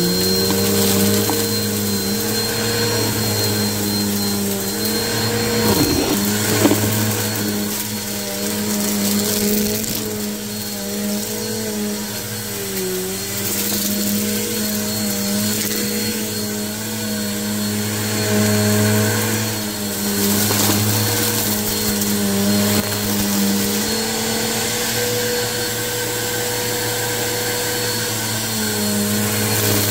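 Bissell Helix upright vacuum cleaner running steadily, its motor hum wavering slightly in pitch, with a thin high whine above it.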